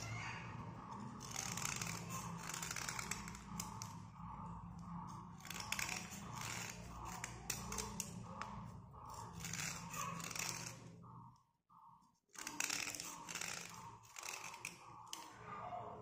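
Slate pencil being scraped by hand with a fingernail: repeated short rasping strokes over a steady low hum. The sound cuts out briefly about eleven seconds in, then the scraping resumes.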